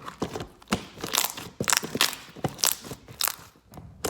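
Clear slime, freshly activated, being squished and stretched by hand, making irregular crackles and pops.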